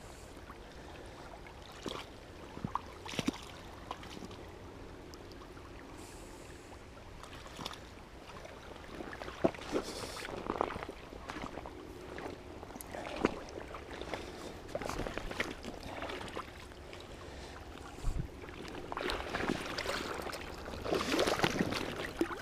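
Faint running river water with scattered short knocks and splashes, busier near the end.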